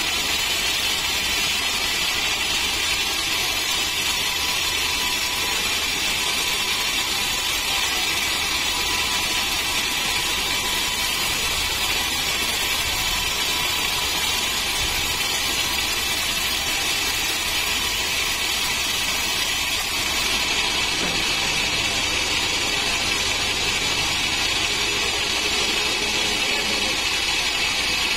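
Band sawmill blade cutting lengthwise through a teak log: a steady, loud sawing hiss over the running machine.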